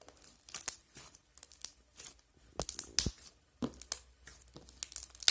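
Red fluffy slime being worked by hand, giving an irregular string of sticky crackles, snaps and pops.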